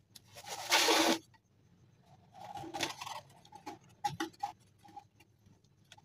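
Handling noises as a small DC motor with a plastic fan blade on a wooden stick is fitted into a cardboard box: two short rustling, scraping bursts, then a few light knocks and clicks. The motor is not running.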